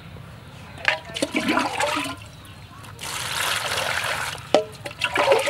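Water splashing and sloshing in a plastic basin as bell peppers are washed, then a steady pour of water from a plastic scoop onto them starting about three seconds in, with a few sharp knocks near the end.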